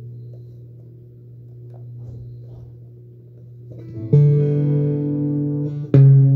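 Frankenstrat-style electric guitar with four pickups, played through a small practice amp. A low note rings quietly and swells and fades a little. About four seconds in, a much louder chord is struck and held, and another is struck near the end.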